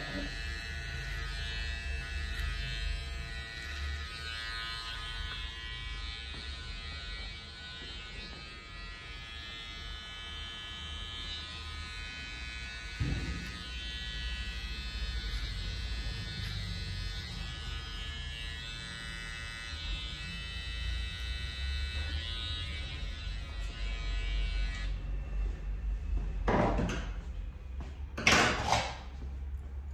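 Small cordless detailing clipper buzzing steadily as it trims eyebrows, with a single click about halfway. It stops a few seconds before the end, and two short rushing noises follow.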